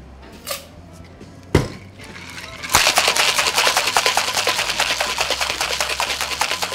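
Ice in a metal cocktail shaker. A single sharp knock about a second and a half in, then, from just under three seconds in, the ice rattles hard and fast as the shaker is shaken.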